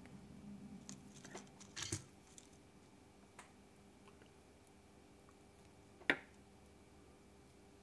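Quiet workbench room tone with a few faint clicks and taps from handling a soldering iron and small parts on a drone frame: a little cluster about two seconds in and one sharp click about six seconds in.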